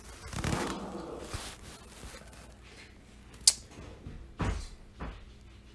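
A man sighing softly, then a sharp click and two dull thumps as the camera is handled.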